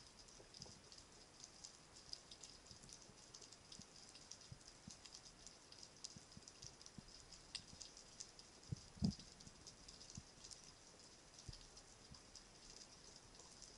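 Faint underwater crackling of snapping shrimp on a rocky reef: a dense, irregular patter of tiny clicks. A single dull thump stands out about nine seconds in.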